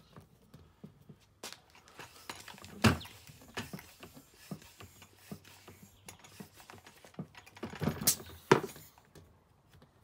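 Irregular small clicks and knocks of a pump hose connector being fitted onto a valve extender on a scooter tyre valve. There are two louder sharp clacks, about three seconds in and again near the end.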